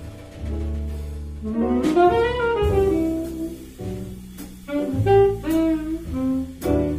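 Small jazz band playing a slow ballad: saxophone carrying the melody over upright bass, piano and drum kit, with a few light cymbal strokes.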